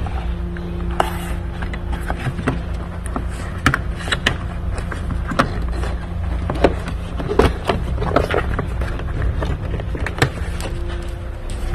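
Irregular clicks and knocks of hand tools, bolts and parts being handled while fasteners and covers are taken off in a car's engine bay, over a steady low hum.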